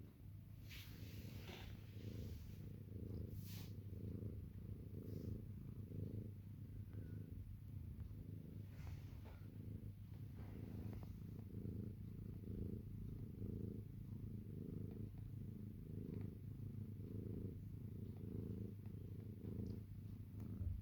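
Mother Sphynx cat purring steadily and close up, the purr swelling and easing with each breath. A few soft rustles come early on and again around the middle.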